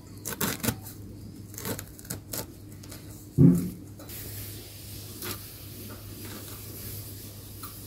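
Moringa leaves being cut with a blade in a steel bowl: scattered crisp cuts and rustling of wet leaves, with a louder knock about three and a half seconds in.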